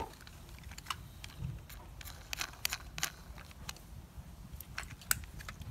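Irregular light clicks and taps of hard plastic toy auto rickshaw parts being handled and fitted together, the sharpest click about five seconds in.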